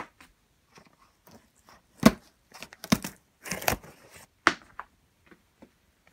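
A large cardboard shipping box being handled and shifted: a few sharp knocks of the cardboard, the loudest about two seconds in, with a short scraping rustle between them and small taps around.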